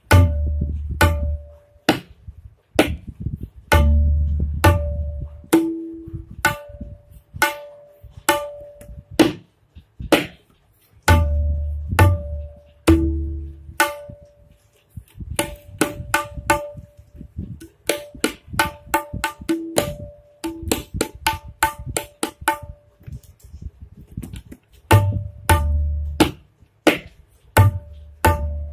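Tabla pair playing a kayda built on dha dha tete strokes: quick, sharp strokes on the dayan ring at one steady pitch, and deep bass strokes on the bayan come back at the start of each cycle. The strokes grow denser about halfway through.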